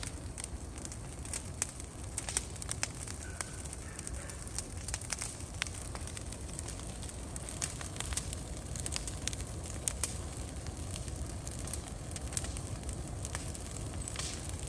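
Burn-pile fire crackling and popping: irregular sharp pops over a steady low rumble of flame.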